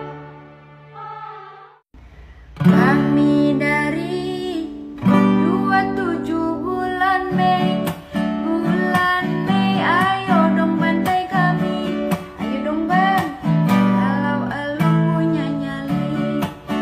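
A fading tune, a brief break about two seconds in, then a woman singing in Indonesian while strumming an acoustic guitar.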